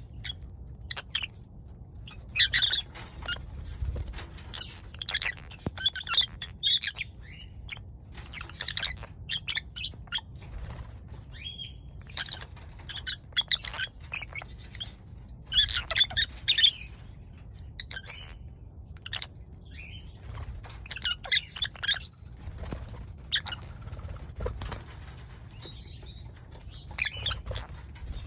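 Lovebirds chirping in short, high-pitched bursts of chatter that come and go every second or two.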